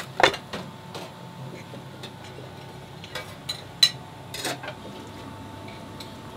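Dishes and utensils clattering in a restaurant kitchen: a handful of scattered clinks and knocks, two of them sharper, over a steady low hum.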